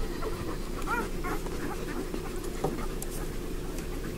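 Five-day-old Bernese Mountain Dog puppies squeaking and whimpering while they nurse, with a few short rising squeaks about a second in.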